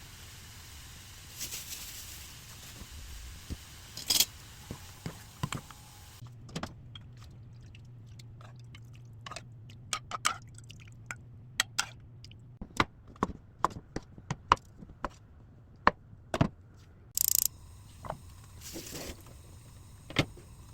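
Kitchen clatter: irregular sharp clinks and taps of utensils against dishes and cookware, with a low steady hum for several seconds in the middle.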